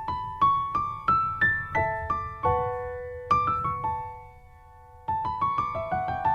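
Piano music: single notes climbing in steps about three a second, a long held note, then a short lull about four seconds in before more notes resume.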